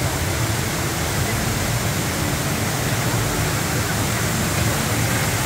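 Tall man-made waterfall pouring down a plant-covered wall: a steady rush of falling water.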